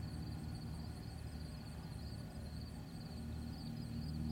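Cessna 172's piston engine running at low power as the plane flares to land: a steady low drone that gets louder near the end as the plane comes closer. A faint, rhythmic high-pitched chirring runs underneath.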